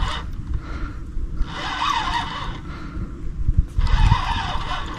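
The reel on a feeder rod whirring in three bursts about a second long, evenly spaced, while a hooked carp is being played, over a low rumble.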